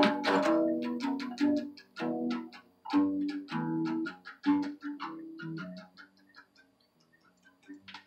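Guitar picking single notes in a slow outro, the playing thinning out and fading away about six seconds in. A few faint clicks near the end.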